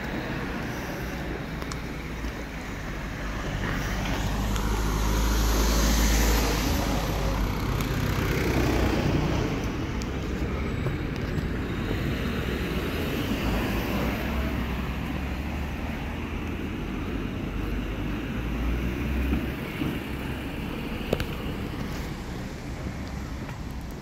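Road traffic: a motor vehicle passes close by, loudest about six seconds in, with steady traffic noise after.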